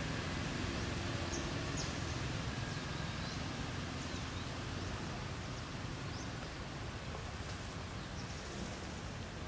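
Steady outdoor background noise, a low rumble and an even hiss, with a few faint, brief high-pitched chirps scattered through.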